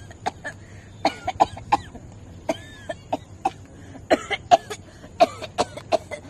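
A woman's acted smoker's coughing fit: many short, sharp coughs in quick clusters, several a second.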